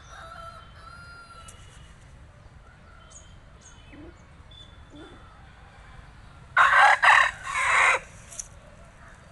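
Long-tailed Jawa Aseel rooster crowing once, loud and about a second and a half long, broken into three parts, about two-thirds of the way in.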